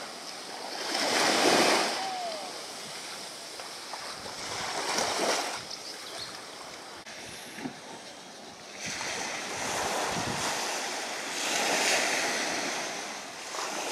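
Small waves breaking and washing up a sandy beach, rising and falling in slow surges a few seconds apart.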